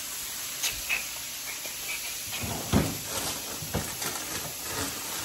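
Mahi fillets frying in hot oil, a steady sizzle, with a few scattered knocks and clicks of kitchen things being handled.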